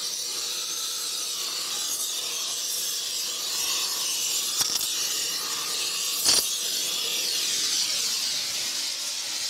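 Gas torch flame hissing steadily as it heats the hub of a steel flat belt pulley to expand it and free the old pressed-in shaft. Two sharp clicks come a little past the middle.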